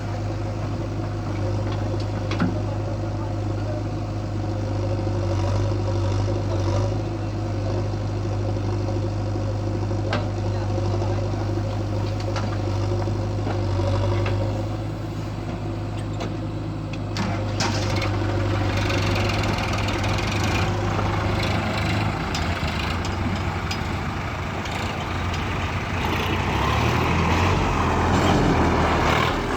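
Heavy diesel engine of earth-moving machinery running steadily at idle, with a few sharp knocks. About two-thirds of the way in the engine note changes, and near the end it grows louder and rougher as it is worked harder.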